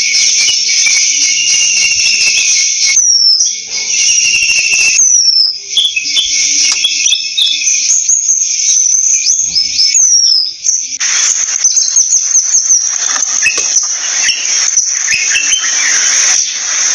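Oriental magpie calling: short whistled notes sliding downward and scattered chirps, over a steady high-pitched insect drone. In the last third the chirping becomes busier and denser.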